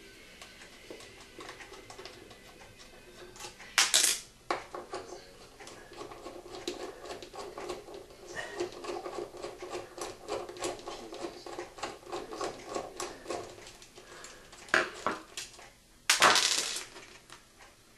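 Screwdriver backing out the mounting screws of a metal wall switch in its electrical box, a run of small rapid metallic ticks and scrapes. Sharp metal clinks and clatters about four seconds in, and again twice near the end as the cover plate and screwdriver are set down on the countertop.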